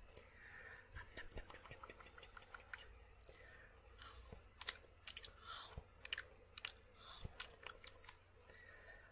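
Faint close-miked mouth sounds: irregular tongue clicks and lip smacks, a few a second, with no words.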